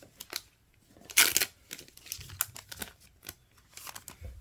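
Yu-Gi-Oh booster pack being handled: the foil wrapper crinkling and the cards clicking against each other in a run of short sharp sounds, with one louder rustle about a second in.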